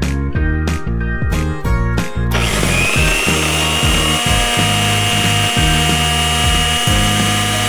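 A miniature electric mixer grinder's small motor switches on about two seconds in and runs with a steady high whine, grinding biscuit pieces in its plastic jar. Background music plays throughout.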